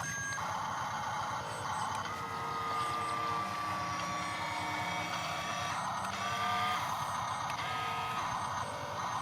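Electric gear motors of a toy-grade RC construction machine whining as it works, with a held tone that shifts pitch a few times as the load changes.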